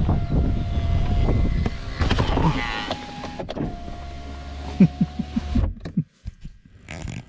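Car's electric window motor whining steadily while the side window closes, in three runs with short breaks, over irregular clopping of cattle hooves on the tarmac outside. A loud short bump comes about five seconds in, and the whine cuts off just before six seconds.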